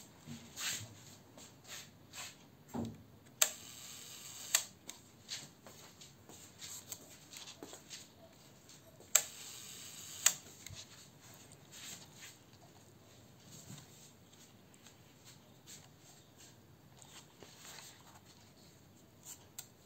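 Leaf shutter of a Ricohflex twin-lens reflex camera fired twice at a slow speed: each time a sharp click, about a second of faint whirring from the timing mechanism, then a second click. Softer clicks of the camera being handled and cocked fall in between.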